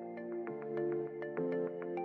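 Background music: held chords that change every second or so, with quick short notes over them.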